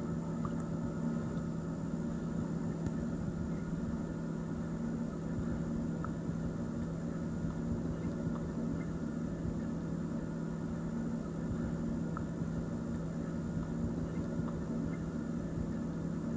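Underwater ambience in a swimming pool picked up by a submerged camera: a steady low hum with a faint hiss, without bubbles or splashes.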